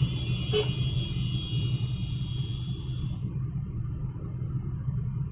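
Cabin noise inside a Honda Amaze petrol car: a steady low drone from the engine and road. A thin high-pitched tone is heard over it for the first three seconds, with a single click about half a second in.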